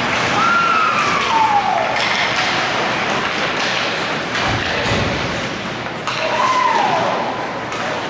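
Ice hockey game noise: scattered knocks and thuds of sticks and puck over a steady hiss, with two falling tones, one about half a second in and another about six seconds in.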